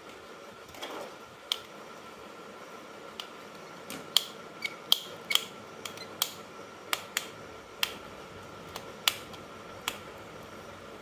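Irregular sharp clicks and snaps of hard plastic toy parts being handled, about fifteen of them spread over several seconds, over a faint steady hum.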